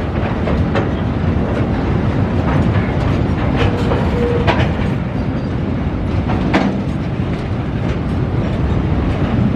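Train of rail tank wagons rolling slowly past close by: a steady rumble of wheels on rail, with sharp clicks of the wheels crossing rail joints about once a second.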